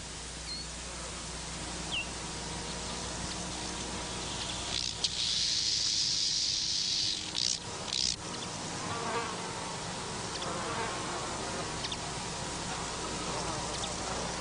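Insects buzzing in the open air, with one louder, high buzz lasting about two and a half seconds from about five seconds in, followed by a few short clicks.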